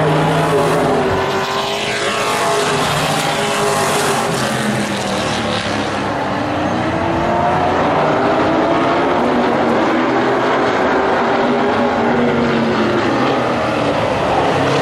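Several vintage modified race cars' engines at racing speed on an oval track, their pitch rising and falling as the cars accelerate and pass.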